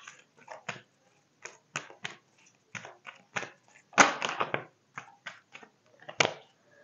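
A deck of angel oracle cards being shuffled by hand: irregular flicks and rustles of card stock, with a denser flurry about four seconds in and a sharp snap near the end.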